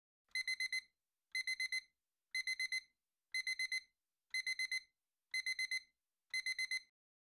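Phone alarm beeping: seven quick groups of four short, high electronic beeps, one group each second, in the classic alarm-clock pattern.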